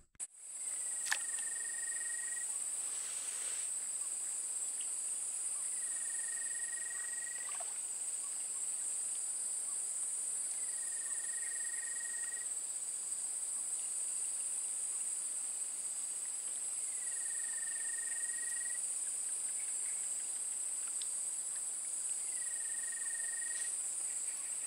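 Steady high-pitched drone of insects. Over it, a short, even call sounds five times, about every five or six seconds.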